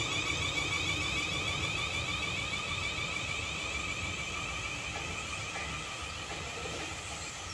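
Siemens Desiro Class 450 electric multiple unit pulling away, its traction equipment giving a high whine in several steady tones over a low rumble from the wheels on the rails. The sound fades slowly as the train draws off.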